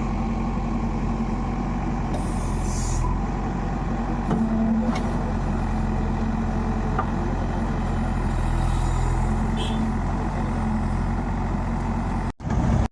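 Diesel engine of a backhoe loader running steadily at work, with a brief hiss about two and a half seconds in. The sound cuts out sharply twice near the end.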